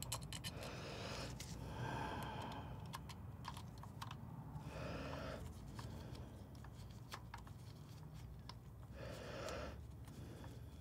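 Faint, irregular light clicks and soft rustles of latex-gloved hands handling a camera's metal EF lens mount and its small screws while screwing the mount back onto the camera body.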